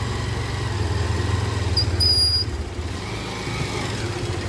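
Motorcycle engine running at low speed as the bike is taken slowly up a slope, with a brief high squeak about two seconds in.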